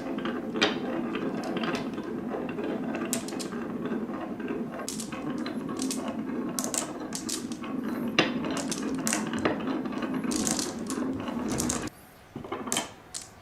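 Many marbles rolling in a stream down the wooden wave slopes of a HABA marble run: a steady rumble with frequent sharp clicks as marbles knock together and against the track. The rumble stops suddenly near the end, leaving a few last separate clicks.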